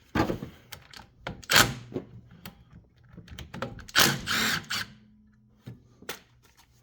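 Hand tools clicking and knocking against metal as the 10 mm bolts holding an ATV starter motor are undone, with a loud knock about a second and a half in and a short rasping burst around four seconds in.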